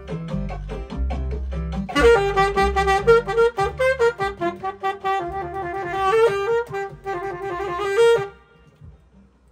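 Alto saxophone playing a melody over a low bass accompaniment. The sax comes in loud about two seconds in, and the music stops about eight seconds in.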